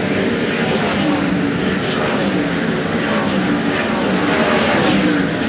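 Winged 410 sprint cars racing on a dirt oval, several V8 engines running loud together, the pitch rising and falling as cars pass.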